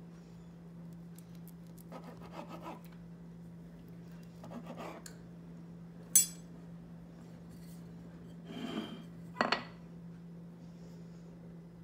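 Table knife sawing through a rolled bread sandwich on a plastic cutting board in a few short rasping strokes. A sharp click about six seconds in is the loudest sound, and there is a knock near nine and a half seconds, over a steady low hum.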